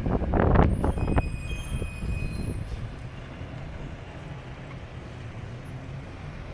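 Wind buffeting the microphone for about the first second, then a nearby vehicle's low engine rumble in the street, with a brief high squeal about a second in.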